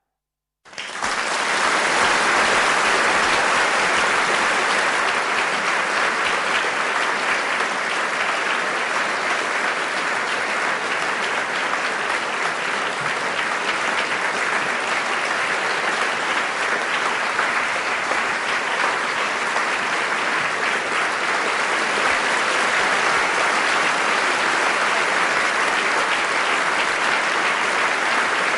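Crowd applauding: a dense, steady clapping that starts abruptly under a second in and keeps on without a break.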